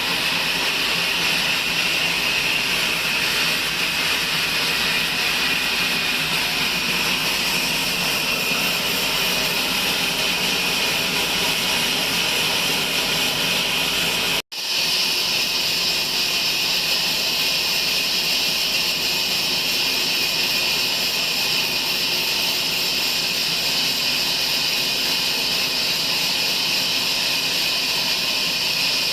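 Sawmill bandsaw cutting through a log: a steady, high-pitched hiss and whine. It cuts out for an instant about halfway through, then carries on unchanged.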